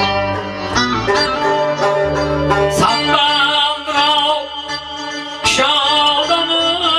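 Electronic keyboard playing a folk melody in a plucked-string voice, with a man singing a drawn-out, wavering vocal line over it from about three seconds in.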